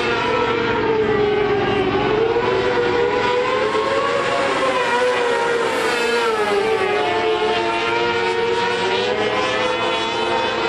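Micro sprint car's high-revving motorcycle engine running at speed as it laps, its note rising and falling in long sweeps every few seconds.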